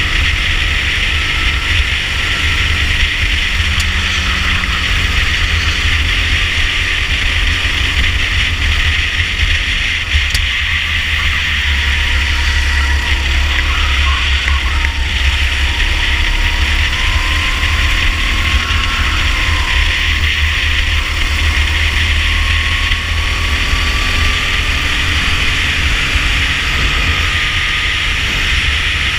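Rental kart driven at racing speed, heard from a camera mounted on the kart: heavy steady wind rumble and hiss on the microphone over the kart's running engine, whose faint pitch rises and falls through the middle as it brakes and accelerates through a corner.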